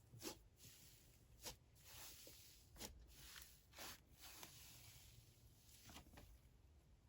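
Faint slime being handled: a few soft squishy crackles and pops about a second apart.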